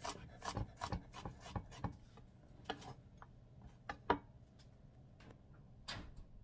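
Chef's knife chopping garlic cloves on a plastic cutting board: quick knocks about three a second for the first two seconds, then a few scattered taps.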